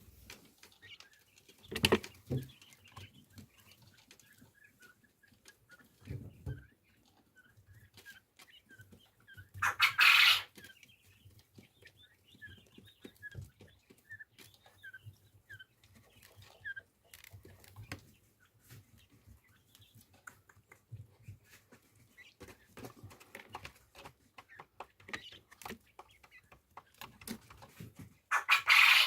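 Quail giving a series of short, soft peeping call notes, a run of them in the middle, with a few brief loud bursts of rustling noise, the loudest about ten seconds in and another right at the end.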